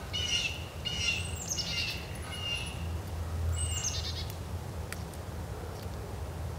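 Wild songbirds chirping: about five quick phrases of notes that step down in pitch, crowded into the first four seconds, over a steady low hum.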